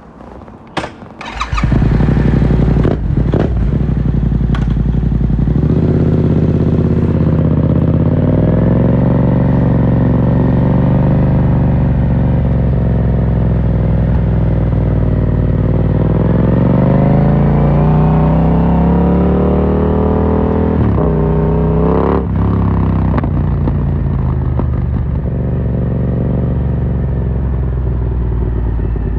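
Yamaha MT-07's parallel-twin engine breathing through an Akrapovic carbon full exhaust, starting up after a few clicks about a second and a half in, then running steadily. About two-thirds through, the engine speed slowly rises and drops back, followed by a single sharp click.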